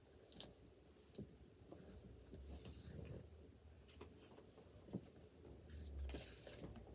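Near silence in a small room, with faint rustling and a few scattered light clicks of things being handled off to one side.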